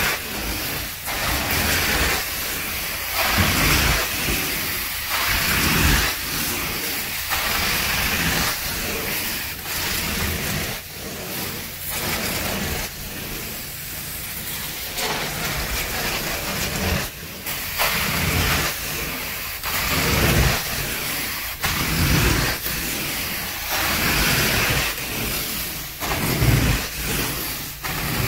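Carpet-cleaning extraction wand sucking water and dirt from a pre-treated carpet, a loud steady hiss of suction that swells and fades as the wand is pushed and pulled in strokes.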